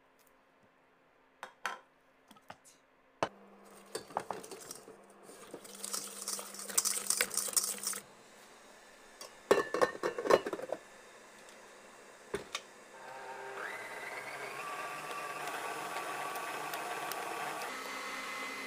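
Kitchen handling sounds: a few light clicks, then rustling and clattering as ingredients go into a stainless steel mixing bowl, and loud metal clinks as the bowl and wire whisk are handled at the stand mixer. About two-thirds of the way in, a steady motor whir starts with a faint rising whine: the stand mixer running.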